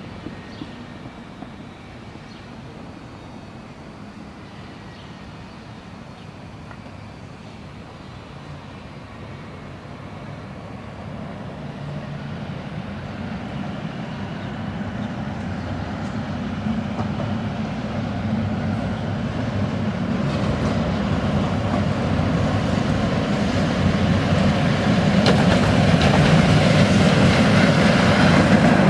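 Two-car Konstal 105Na tram set approaching on street track. Its running noise grows steadily louder from about a third of the way in until the tram is passing close by at the end, over a quiet street background at first.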